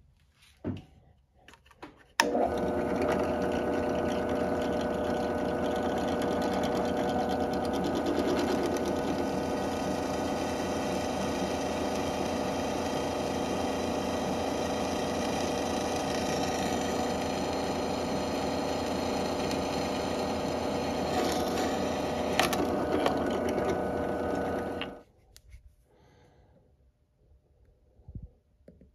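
Benchtop drill press switched on about two seconds in and running steadily while a small twist bit drills into a metal disc, with a single sharp click late in the run. The motor is switched off a few seconds before the end and winds down quickly.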